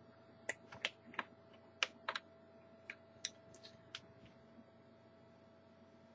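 Light clicks and taps of small hard objects, about a dozen in the first four seconds and then dying away, over a faint steady hum.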